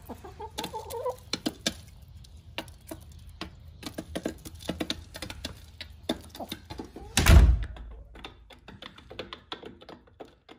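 Hens pecking dried mealworms off a wooden door threshold: rapid, irregular tapping of beaks, with a short hen call about half a second in. About seven seconds in there is one loud thump as the door shuts.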